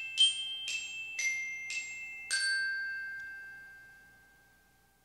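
A short glockenspiel-like jingle: bright struck, bell-like notes about two a second, the last one ringing out and dying away.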